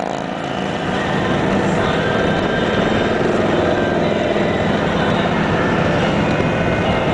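Several motorcycles cruising together at highway speed: a steady, loud drone of their engines mixed with road noise.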